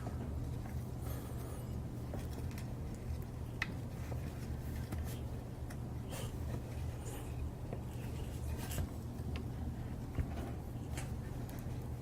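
Faint rubbing and a few light clicks as a lubricated rubber gasket is worked into place over the joint of two grooved pipe ends, over a steady low hum.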